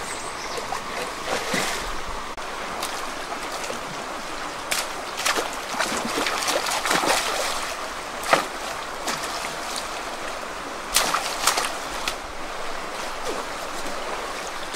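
Water splashing as a person wades waist-deep through a flowing river and sweeps a stick through it, over the steady rush of the current. Several sharper splashes stand out, the loudest about eight and eleven seconds in.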